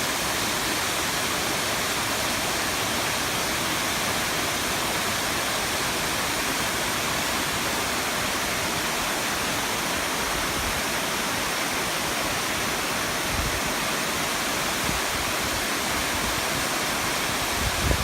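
Waterfall: a steady, even rush of falling water, with a few low rumbles near the end.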